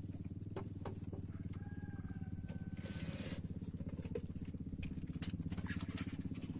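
A steady low motor drone with a fast, even pulse, with scattered light clicks and a short rush of noise about three seconds in.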